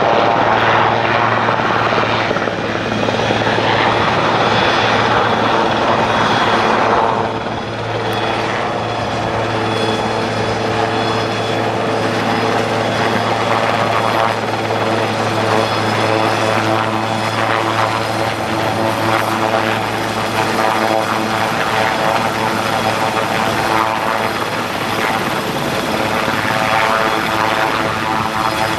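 Large Sikorsky S-61-type firefighting helicopter hovering low and coming down toward the ground: a steady, loud rotor thrum with turbine whine, swelling and whooshing for the first several seconds, then settling into a steadier drone.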